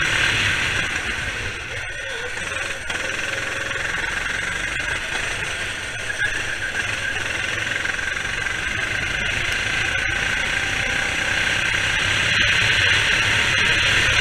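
Go-kart engine running under throttle, heard from on board the kart. The engine sound dips briefly about two seconds in, then grows steadily louder toward the end.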